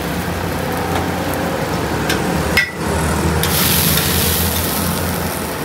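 An egg and oil sizzling on a hot flat griddle over a steady low hum. A sharp clack comes a little past halfway, followed by about a second of louder hissing.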